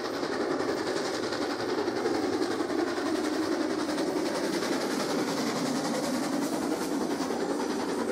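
Steam-hauled passenger train rolling past close by: a steady noise of the locomotive and carriage wheels running on the rails.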